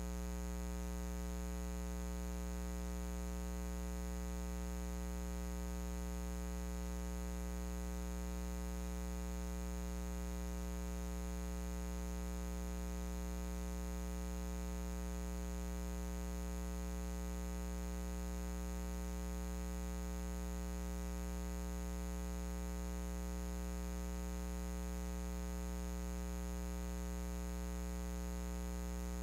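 Steady electrical mains hum: a low, even buzz with a ladder of higher overtones and a faint hiss, unchanging in pitch and level.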